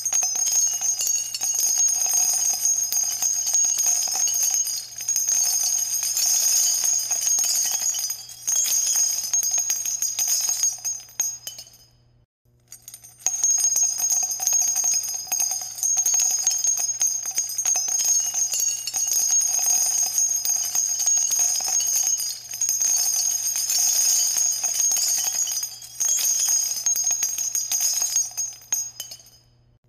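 Background music led by bright bells and chimes, breaking off briefly about twelve seconds in and again near the end.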